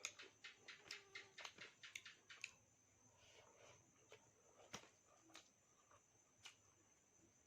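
Faint crunchy chewing close to the microphone: a quick run of crisp crunches for about two and a half seconds, then a few scattered single crunches and mouth clicks.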